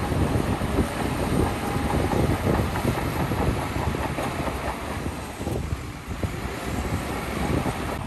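Crawler bulldozer working: its diesel engine runs steadily under the dense clatter of its steel tracks, easing off slightly about six seconds in.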